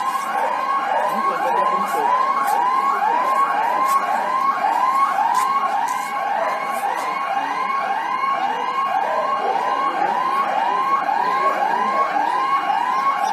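Electronic alarm siren whooping up and down rapidly, about two rise-and-fall cycles a second.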